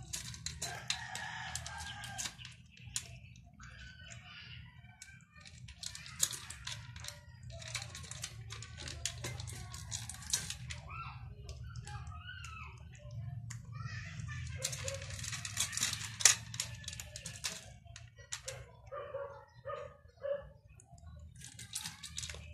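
Domestic cat chewing dry kibble, crisp crunching in bursts with short pauses. Short animal calls sound in the background.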